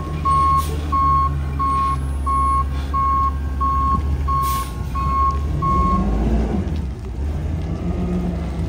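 Backup alarm of a Heil rear-loader garbage truck beeping steadily, about three beeps every two seconds, over the truck's compressed-natural-gas engine running; the alarm signals the truck is in reverse. The beeping stops about six seconds in, followed by a brief rise and fall in the engine sound, and two short hisses come through along the way.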